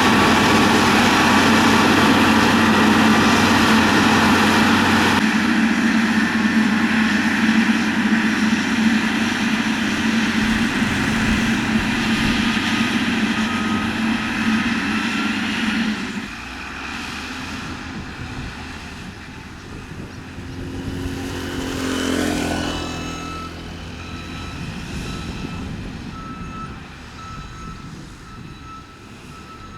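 Motor grader's diesel engine running with a steady drone, which drops much quieter about halfway through. Later a machine passes with a falling pitch, and a reversing alarm beeps repeatedly near the end.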